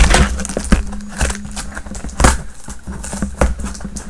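Cardboard shipping box and its packing tape handled close to the microphone: a run of irregular scrapes, taps and rustles.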